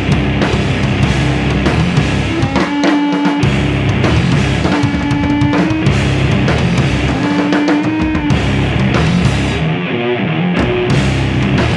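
Live rock band in a rehearsal room: drum kit and amplified distorted guitars played loud and fast. Three times a held note rings out while the deep bass drops away, before the full band comes back in.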